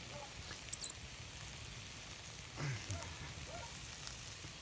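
Shrimp frying in a kazan over a campfire: a steady light crackling sizzle, with one sharp crack a little under a second in.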